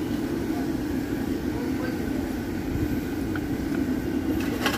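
A steady low droning noise with no clear pitch, with a few sharp knocks near the end.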